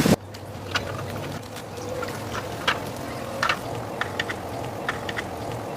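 Scattered light clicks and taps at irregular intervals over a low steady hum.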